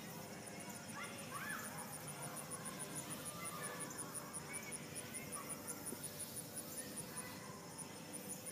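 An insect chirping in a fast, even, high-pitched pulse, about five chirps a second, pausing briefly near the end, with a few faint bird chirps now and then.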